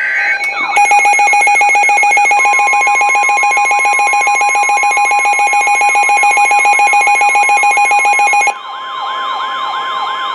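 Weather-radio emergency alert signal ahead of a severe thunderstorm warning: a brief data burst, then a loud, rapidly pulsing alarm tone layered with a siren wail sweeping up and down about twice a second. A steady single warning tone joins a couple of seconds in. The pulsing tone cuts off about eight and a half seconds in, leaving the siren wail and the steady tone.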